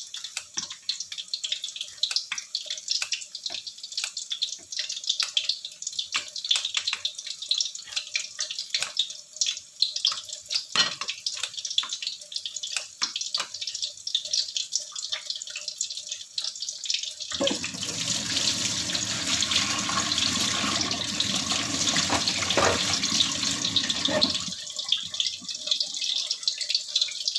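Battered cempedak fritters sizzling in hot oil in a wok, a dense irregular crackling and popping. About two-thirds of the way through, a louder steady rushing hiss comes in for about seven seconds, then the crackling carries on alone.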